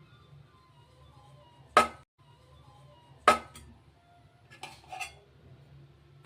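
Metal utensil striking cookware: two sharp clinks about a second and a half apart, then two lighter ones close together near the end.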